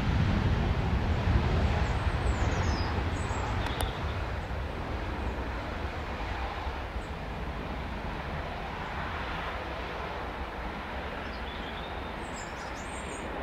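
Jet engines of a Ryanair Boeing 737 on the runway, a broad steady rumble that fades gradually as the airliner rolls away.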